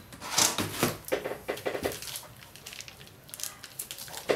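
Plastic shrink wrap crinkling and rustling around a stack of hardcover comic books as it is handled, in irregular crackly bursts with a few light knocks.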